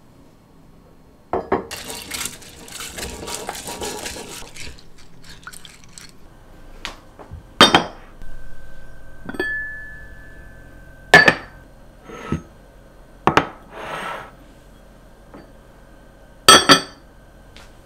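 Cookware handled on a countertop: pot lids are lifted and set down, first with a few seconds of scraping and rustling, then a series of sharp clinks and knocks. One of them leaves a ringing tone hanging for a few seconds, and a double knock near the end is the loudest.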